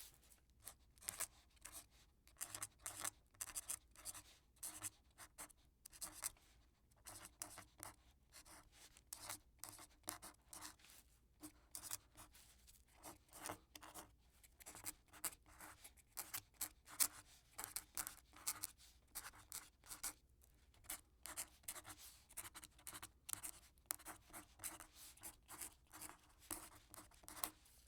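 Quill pen writing: the nib scratches across paper in quick irregular strokes, grouped in bursts with short pauses between words.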